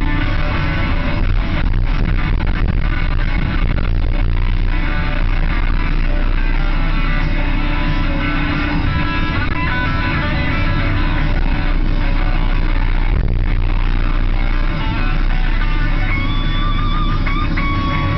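Rock music with electric guitar plays throughout, over the steady running of a Kobelco excavator's engine.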